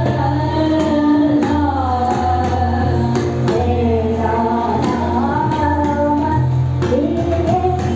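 A woman sings a slow, gliding dhrupad melody over a steady low drone. A pakhawaj barrel drum plays scattered strokes under the voice.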